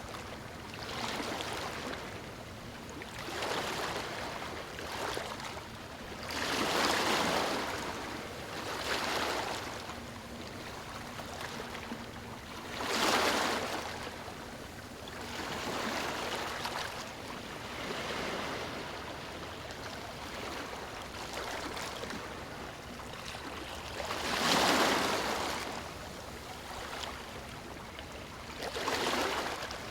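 Small waves breaking and washing over a stony shore: a steady rush of water that swells and falls back every few seconds, with a few surges louder than the rest.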